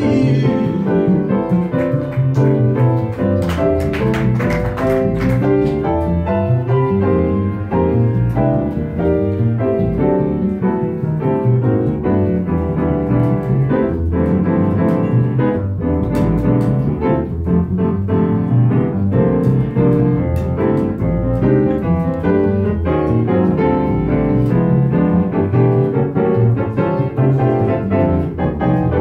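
Piano playing an instrumental break in a slow ballad, with sustained chords and moving melodic lines.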